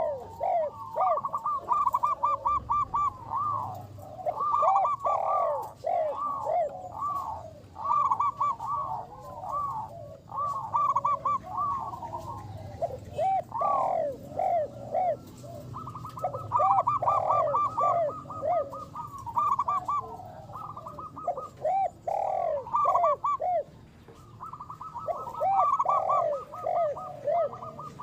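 Zebra dove (perkutut) cooing: rapid bursts of short, arched, rising-and-falling notes, repeated again and again, with strands at two pitches overlapping at times.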